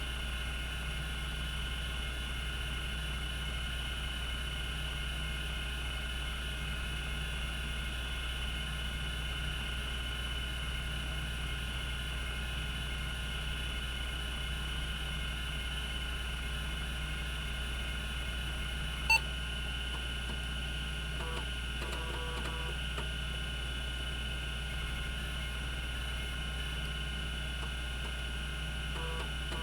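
Cogito Systems CG-912 10 MB MFM hard drive spinning at 3600 RPM: a steady low hum with a faint high whine. One sharp click about two-thirds of the way in, and a few faint short ticks after it.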